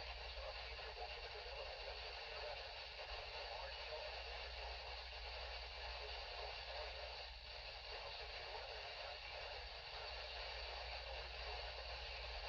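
Steady hiss from a weather radio receiver with no announcement being read, with a low hum underneath.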